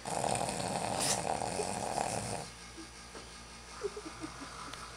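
A person fake snoring: one long, loud, rasping snore lasting about two and a half seconds, then a quieter stretch with a few short squeaky sounds near the end.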